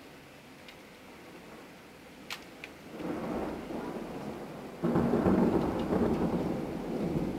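Thunder over steady rain: a rumble builds about three seconds in, then a sudden, much louder clap rolls on through the rest.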